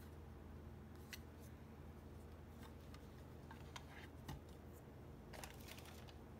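Faint scattered clicks and taps of hard plastic toy pieces being handled and set down on a table, over a low steady hum.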